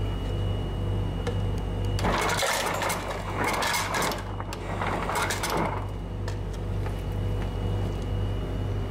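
Push-button ice dispenser dropping ice cubes into a plastic cup: two bursts of rattling clatter, the first about two seconds long and the second about one second, over a steady low hum.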